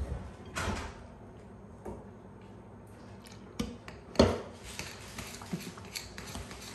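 Metal spoon stirring thick dumpling batter of flour and milk in a mixing bowl, with small scrapes and clinks against the bowl. About four seconds in, a glass measuring cup is set down on the counter with a sharp knock, the loudest sound.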